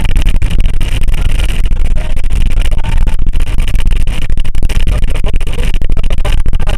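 Heavy rain falling hard during a thunderstorm: a loud, steady hiss packed with close drop impacts.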